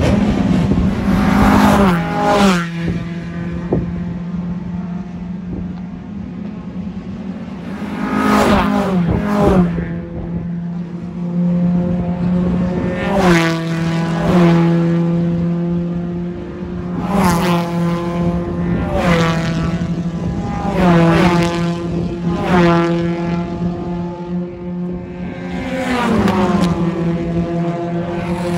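Race car doing a burnout, tyres spinning and smoking. The engine is held high and steady, with repeated surges of harder revving that each drop away again.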